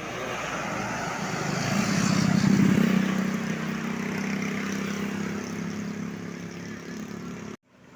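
Tour bus engine going past close by, growing louder to a peak about two and a half seconds in, then a steady engine hum. The sound cuts off abruptly just before the end.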